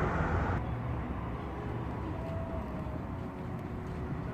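Steady low outdoor background rumble, with a brighter hiss that cuts off sharply about half a second in.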